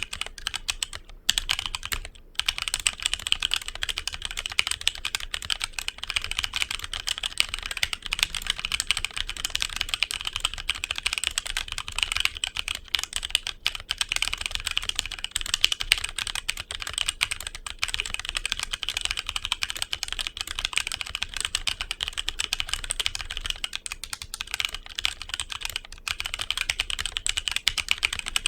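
HyperX Alloy Origins Core mechanical keyboard with HyperX Aqua tactile switches being typed on steadily, a fast stream of key clicks with two short pauses about one and two seconds in.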